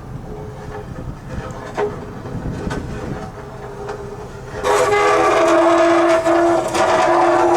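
Ship entering a canal lock, scraping: a low rumble with scattered creaks and knocks, then about four and a half seconds in a loud, steady metallic screech of several held tones breaks in and carries on. This kind of scraping is not normally heard as a ship enters a lock.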